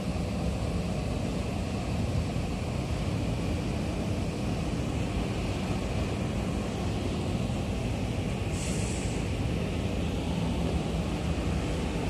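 JR East E531-series electric commuter train running at the station with a steady low rumble, and a short sharp air hiss about eight and a half seconds in.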